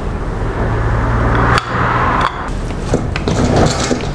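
Motorcycle carburettor float bowl being handled and fitted onto the carburettor body: rubbing and small sharp clicks of metal parts, the clicks coming mostly in the second half, over a steady low hum.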